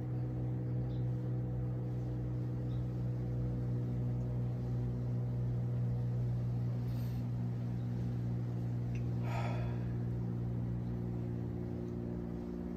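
A steady low hum with an even pitch. Two faint breaths are heard about seven and nine and a half seconds in.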